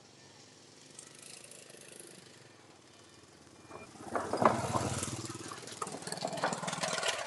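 Small motorbike engine passing close by over a wooden plank bridge deck, with the boards knocking and rattling under the wheels. The sound swells up about four seconds in and stays loud to the end.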